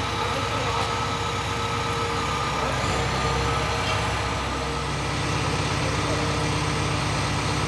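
Heavy construction machine's engine idling steadily, its note changing slightly about five seconds in.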